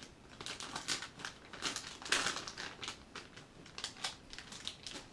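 Plastic fishing-bait packaging crinkling and rustling in the hands as it is handled, with an irregular run of crackles, the loudest about two seconds in.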